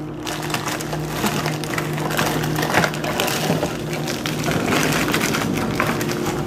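Plastic bag crinkling and cardboard box rustling as a large block of cheese is pulled out of its wrapping, over a steady low hum.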